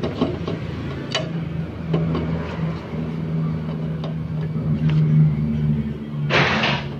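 Light metal clicks and taps from parts being handled on a small engine's casing, over a steady low hum, with a short harsh rush of noise about six seconds in.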